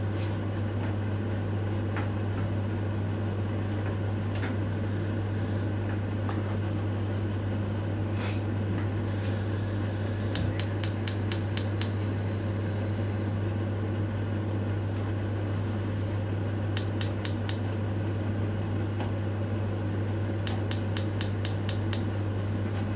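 A steady mechanical hum from a fan or motor, with three short runs of rapid sharp clicking: about ten seconds in, again near seventeen seconds, and in the last couple of seconds.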